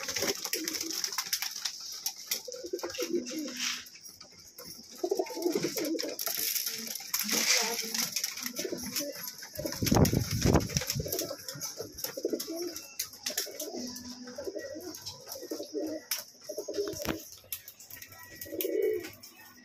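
Domestic pigeons cooing over and over, short low calls one after another, with a deeper thump about halfway through.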